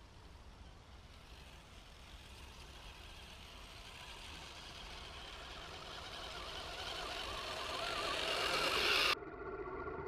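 Radio-controlled Axial SCX10 crawler on Kyosho Blizzard snow tracks, driven by three electric motors, pushing through deep snow and growing steadily louder as it approaches. The sound cuts off suddenly near the end.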